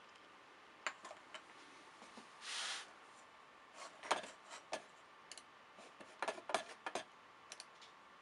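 Scattered light clicks and taps, like a computer mouse and small handling at a desk, with a short rustle about two and a half seconds in and a quick run of clicks around six to seven seconds in.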